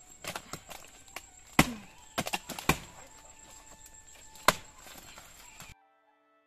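Billhook blades chopping into the fibrous leaf bases of a palmyra palm trunk to strip it down to the tender heart: a run of sharp chops, the heaviest five between about one and a half and four and a half seconds in, with lighter knocks in between. The sound cuts off suddenly shortly before the end.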